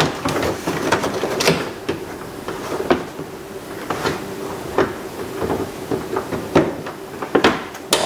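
Plastic door trim panel of a Dodge Durango rear door being handled and fitted against the door: scattered light knocks and rubbing, about seven irregular clicks and taps.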